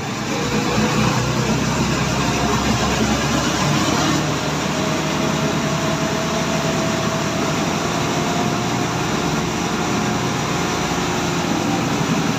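A TVS Apache RTR 160 4V's single-cylinder engine runs steadily at about 50–60 km/h on a roller ramp. This is a test run after cam and rocker replacement, to check for any remaining valve-train noise.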